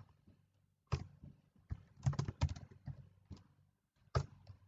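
Computer keyboard typing: about ten separate keystrokes at an uneven pace, with a quick run of several about two seconds in.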